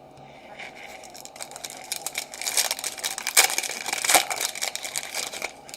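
Foil trading-card pack wrapper crinkling as it is torn open, the crackle building and loudest in the middle before easing off.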